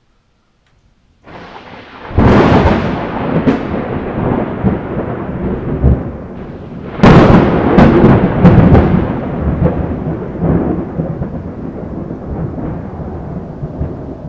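Thunder: a loud clap about two seconds in and a second one about seven seconds in, each rolling on into a long rumble that slowly fades, then cuts off suddenly.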